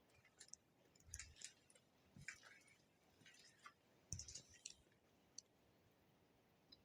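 Faint crunching footsteps: three soft thuds, each with a crackle, about a second apart near the start and middle, among scattered small clicks.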